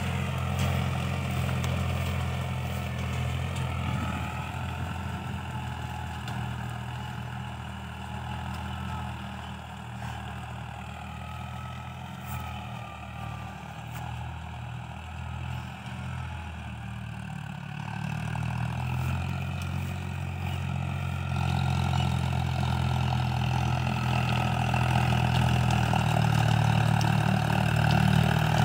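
Farmtrac 60 tractor's three-cylinder diesel engine running steadily under load while pulling a disc harrow through tall green crop. It grows fainter in the middle and louder again toward the end.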